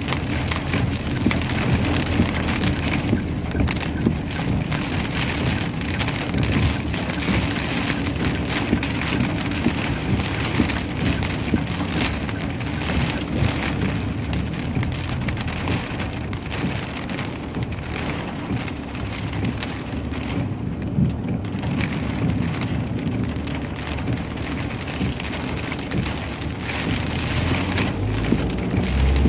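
Heavy rain mixed with hail pelting down, a dense, steady patter of many small impacts.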